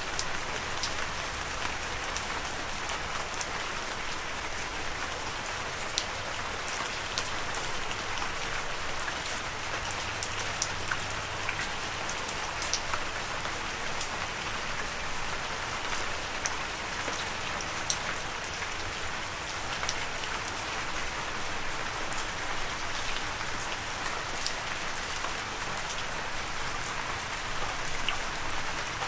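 Steady rain: a dense, even hiss with many scattered sharp drop impacts.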